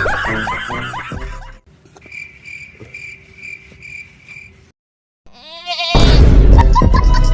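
A string of comic sound effects standing in for a motorbike's noise: a bleat-like animal cry falling in pitch, then a high beep pulsing about twice a second, then a loud noisy burst near the end.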